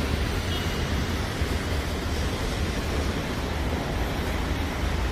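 Steady city traffic noise: an unbroken low rumble with an even hiss over it.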